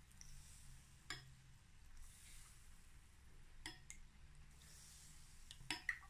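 A metal spoon clinking lightly against a ceramic bowl a few times as sauce is scooped out and drizzled, faint against a low steady hum.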